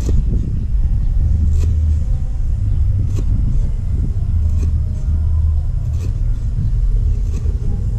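A steel cleaver chopping lemongrass on a round wooden chopping block: sharp knocks, about one every second and a half, over a loud steady low rumble.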